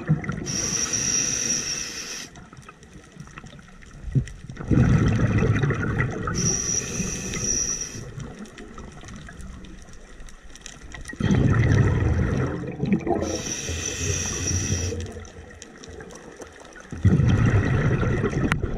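A scuba diver breathing through a regulator: three hissing inhalations through the demand valve, each followed a few seconds later by a gush of exhaled bubbles. One breath comes about every six and a half seconds.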